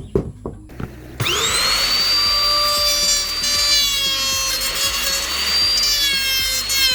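A few clicks, then about a second in a small electric power tool switches on: its motor spins up quickly into a high, steady whine, with the pitch wavering a little near the end as it works.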